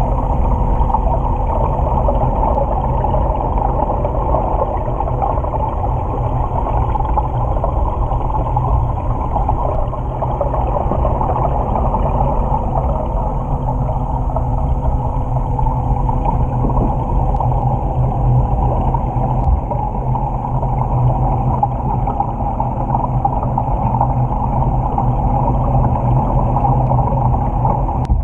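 Underwater sound in an aquarium touch tank, picked up by a GoPro submerged in its waterproof housing: a steady, muffled rumble with a constant hum running through it.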